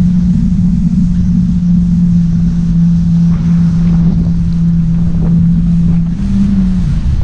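Jet ski engine running steadily under way, with wind buffeting the microphone and a rush of water spray. About six seconds in, the engine note rises briefly, then drops near the end.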